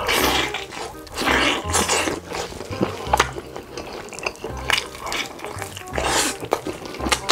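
Eating sounds with cutlery and dishes clinking, over background music with a steady bass beat.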